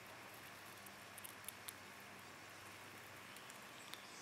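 Red squirrel eating seeds, faint: a few small sharp clicks of shells being nibbled, bunched together a little past the first second and once more near the end, over a low steady hiss.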